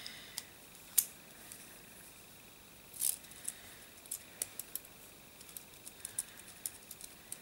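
Light plastic clicks and ticks of a gel pen being handled, its barrel pulled apart and fitted back together. One sharp click about a second in, a short cluster around three seconds, then a run of faint ticks over the last few seconds.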